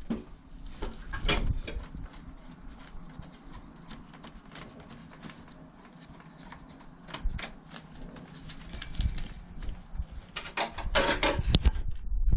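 Scattered clicks and knocks of hard objects being handled, with a dense bout of clattering near the end.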